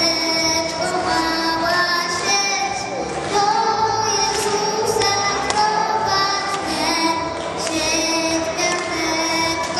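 A young girl singing a Polish Christmas carol (kolęda) into a handheld microphone, holding long notes, over musical accompaniment.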